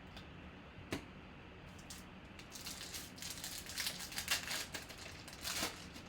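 A trading-card pack's foil wrapper torn open and crinkled, with a sharp click about a second in and a crackle of wrapper noise over the next few seconds.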